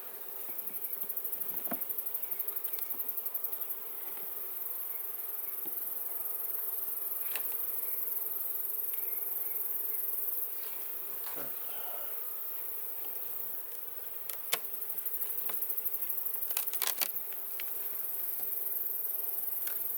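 Honeybees buzzing steadily from an opened hive, with a few sharp knocks as the boxes and frames are handled.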